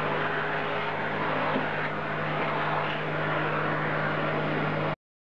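CNC machine running with a steady mechanical hum and whirr, which stops abruptly about five seconds in.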